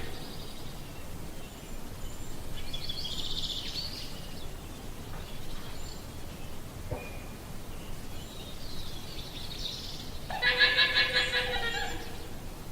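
A llama gives a loud, pulsing, pitched call about ten seconds in, lasting under two seconds. Two fainter high calls come earlier over a steady outdoor hiss.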